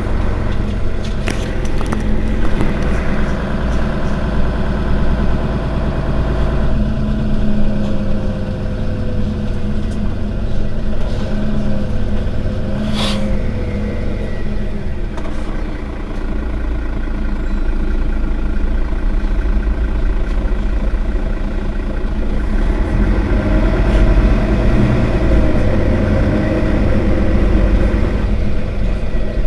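Mercedes-Benz Citaro Facelift city bus running, its engine note steady with slow shifts in pitch as its speed changes. A sharp click about thirteen seconds in.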